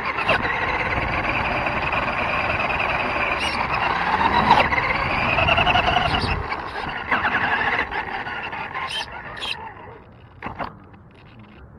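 RC buggy's motor whining as it drives, its pitch rising and falling with the throttle; the sound drops away after about eight seconds as the buggy stops.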